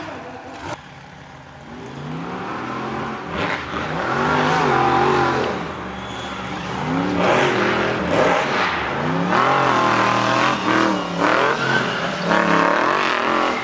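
Off-road racing buggies' engines revving hard, the pitch sweeping up and down again and again with throttle and gear changes. It gets louder about four seconds in.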